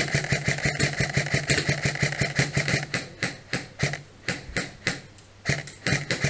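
Airsoft electric gun firing on full auto: the gearbox motor whines under a fast run of clacking shots. From about three seconds in it breaks into separate single shots and short bursts.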